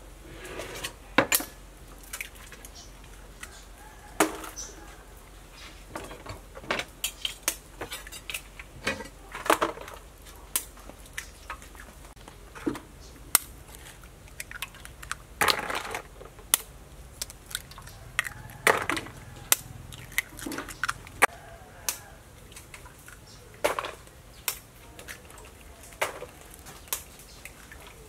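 Eggshells being tapped and cracked open by hand: a string of irregular sharp clicks and taps, with a few louder clinks.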